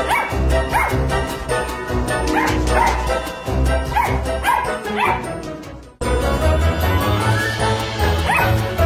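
Samoyed puppy yipping at a cat in a series of short, high barks, over background music with a steady beat. The sound drops out abruptly for an instant about six seconds in.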